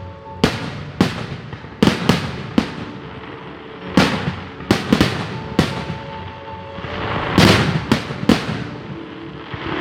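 Fireworks going off: about a dozen sharp bangs at irregular intervals, each followed by a fading echo, with a dense cluster of bursts about seven seconds in.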